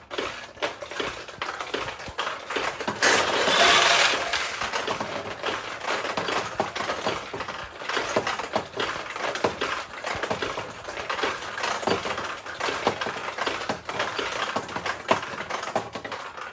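Steel balls in a 1972 Nishijin Model B pachinko machine being launched one after another and clattering down through the playfield pins, a dense run of clicks and metallic rattles. A louder burst of clattering comes about three seconds in.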